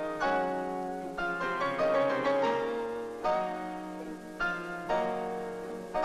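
Piano music: chords struck one after another, each ringing out and fading before the next.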